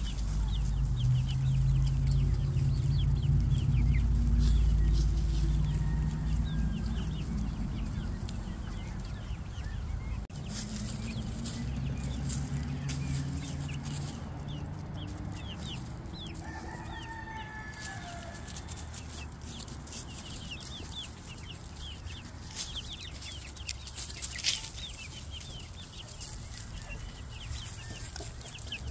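Hens clucking as they forage, over a crackle of many small ticks from dry leaves being scratched and pecked. A heavy low rumble fills the first several seconds, and a sharp click comes near the end.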